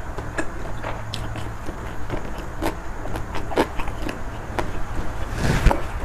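Close-miked chewing of shrimp and squid in a wet, spicy seafood salad: scattered wet mouth clicks and smacks. A short, louder rustling noise comes near the end, over a steady low hum.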